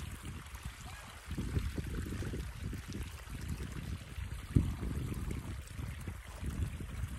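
Wind buffeting a phone's microphone in gusts: a low rumble that swells and drops, with a sharper bump about four and a half seconds in.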